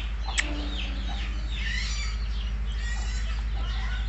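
Chickens clucking, with high, short, falling peeps of chicks, over a steady low hum; a single sharp click about half a second in.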